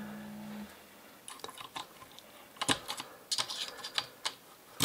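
Irregular small metal clicks and taps as a little Allen key is fitted into the set-screw slots of a drop-in AR trigger housing and the screws are snugged up against the trigger pins.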